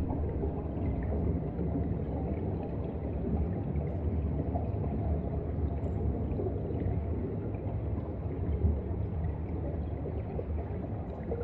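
Underwater ambience picked up by a submerged camera: a steady low rumble of moving seawater with faint scattered ticks.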